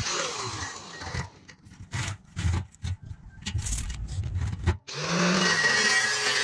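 Angle grinder cutting steel pipe, fading out about a second in. A few seconds of low knocks and handling thuds follow, then the grinder starts again about five seconds in and runs steadily against the pipe.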